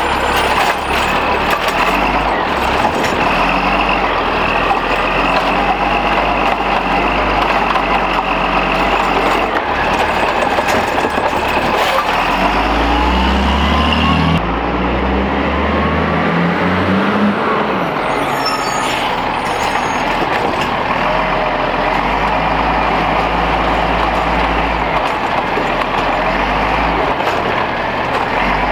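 Peterbilt 320 garbage truck with a Heil Rapid Rail automated side-loader: the diesel engine runs and revs as the hydraulic arm works the carts, revving up twice about halfway through, with gliding whines over the engine.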